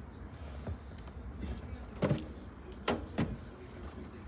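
A few sharp knocks and clacks from handling a small thermoelectric wine cooler. The loudest comes about two seconds in and two more follow close together about a second later, over a low steady hum.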